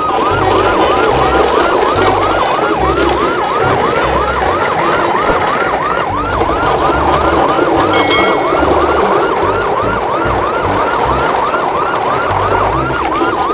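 Electronic siren in a fast yelp pattern: one rising whoop after another, about three a second, without a break.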